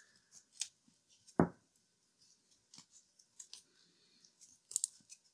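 Self-fusing rubber tape being stretched and wound by hand around a speaker field coil: faint scattered clicks and crackles, with one louder thump about one and a half seconds in.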